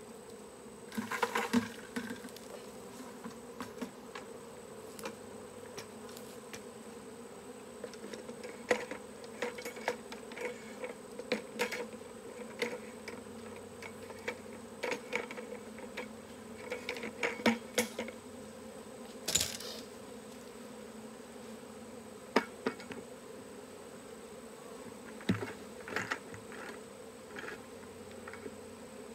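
Honeybee swarm buzzing in a steady hum, with scattered sharp clicks and knocks; the loudest knock comes about two-thirds of the way through.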